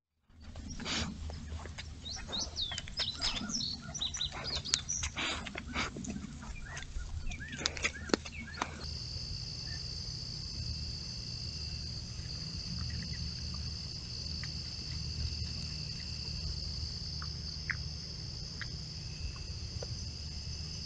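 Birds chirping and singing in quick, varied calls for the first nine seconds or so. Then, after a cut, a steady high-pitched insect chorus with a fainter lower buzz takes over. A low rumble from the trail camera's built-in microphone runs underneath throughout.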